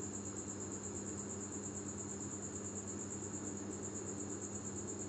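A cricket trilling steadily at a high pitch, over a faint low electrical hum.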